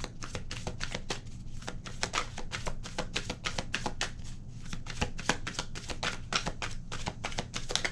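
Tarot cards being shuffled and handled by hand: a quick, continuous run of papery card snaps and slaps.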